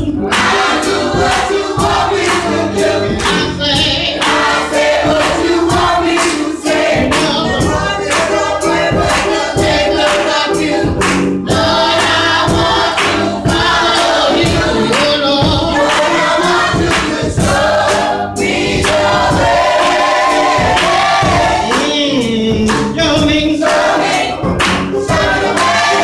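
Gospel choir singing in church with live instruments and a steady beat.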